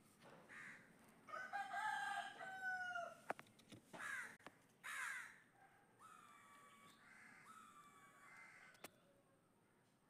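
A rooster crowing: one long call lasting nearly two seconds, falling in pitch at its end. Short, higher calls come after it, and fainter calls follow later.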